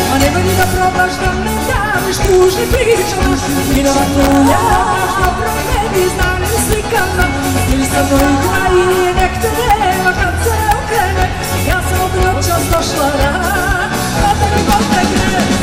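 Live pop-folk band music: a woman singing lead into a microphone over drums, electric guitars and keyboards, with a steady beat.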